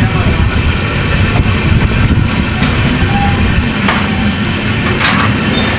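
Passenger train running along the line: a steady, loud rumble and rattle of the coach and wheels on the rails.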